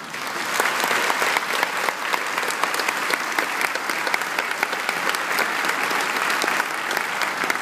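Large audience applauding, many hands clapping together; it swells within the first second and keeps up steadily.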